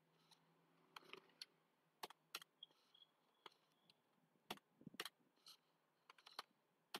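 Faint, irregular keystrokes on a computer keyboard, single taps spaced apart with a quick run of several near the end, as ledger names and entries are typed into accounting software.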